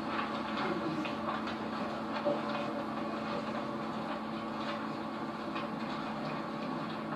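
Steady background hum and hiss of an old recording, with faint rustling as handout sheets are leafed through.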